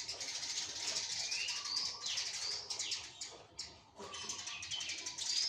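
Caged black-naped oriole calling in short whistled glides, some rising and some falling, over a dense, fast, high chirping chatter. The birdsong dips briefly about two-thirds of the way through.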